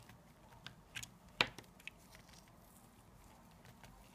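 Light clicks and taps of small parts being handled at the battery compartment in the base of a Zenit-19 SLR camera: four short clicks in the first two seconds, the loudest about a second and a half in.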